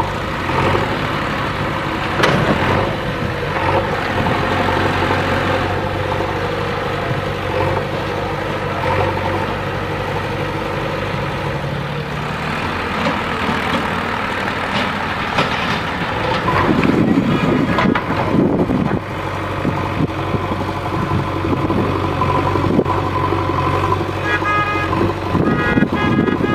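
JCB 3DX backhoe loader's diesel engine running steadily as the machine works, with a rougher rush of noise about seventeen seconds in. A series of short beeps comes near the end.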